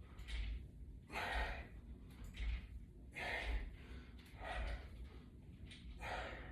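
A man breathing hard in short puffs, in and out about once a second, with the strain of doing squats against heavy resistance bands.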